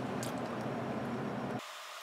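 A steady low hum with hiss that cuts off abruptly about one and a half seconds in, leaving only a thin hiss.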